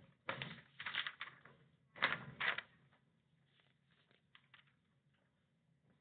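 Sheets of paper rustling as a page is lifted and turned over: three brief rustles in the first few seconds, then a couple of faint taps.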